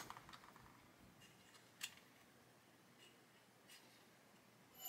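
Near silence, broken by a few faint small clicks of plastic model parts and tools being handled, one about two seconds in and a softer one near the end.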